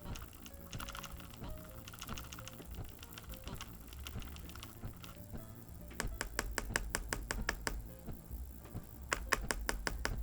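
Typing on a ROYAL KLUDGE M87 mechanical keyboard. Key clicks come irregularly at first, then in a fast, even run of keystrokes from about six seconds in and again near the end, over soft background music.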